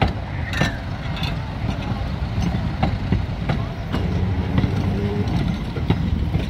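Electric streetcar passing close by: a low rumble from the running gear with irregular clicks and knocks of the wheels on the track.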